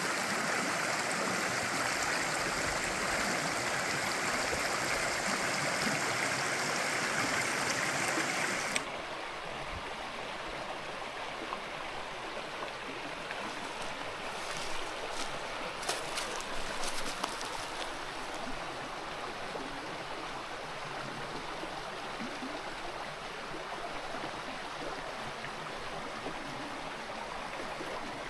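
A mountain stream rushing steadily. About nine seconds in, the sound abruptly drops to a quieter, duller rush. A few short clicks follow a few seconds later.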